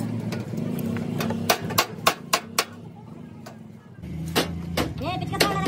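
Hammer blows on car body sheet metal during dent repair: a quick run of five sharp knocks about a second and a half in, then another run near the end with brief metallic ringing, over a steady low hum.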